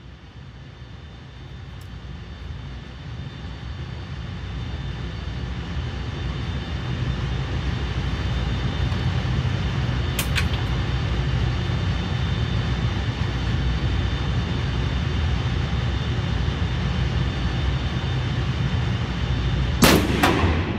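A steady low rumble slowly grows louder, with a faint click about ten seconds in. Near the end a Barrett M82A1 .50 BMG rifle fires a single, very loud shot that rings off the walls of the indoor range.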